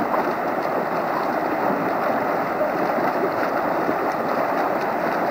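Steady rushing and splashing of open water, the churn of a pack of swimmers.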